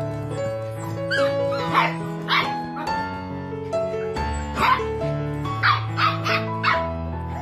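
Puppies barking and yipping in short, high calls while they play, about a second in, twice around two seconds, once near the middle and four times in quick succession near the end, over background music with slow held notes.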